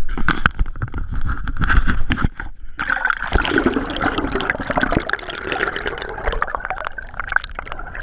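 Water gurgling and sloshing around an action camera held under the surface beside a boat, with sharp knocks and bumps in the first two seconds as it goes in.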